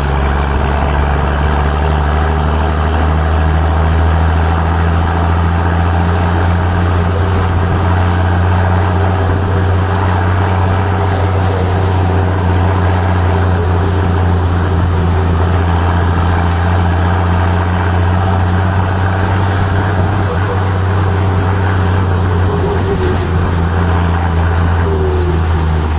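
Powerful engine running steadily at constant speed, a deep even drone with no revving.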